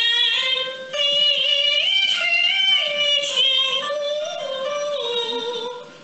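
A woman singing a slow Peking opera aria in the dan-role style, holding long notes with a wavering vibrato and stepping slowly between pitches, over instrumental accompaniment.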